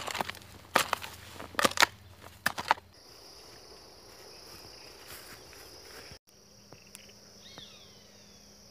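A hoe chopping into dry soil about four times, each strike a sharp crunch of blade and dirt. After that a steady high-pitched insect buzz, with a short chirp about two-thirds through.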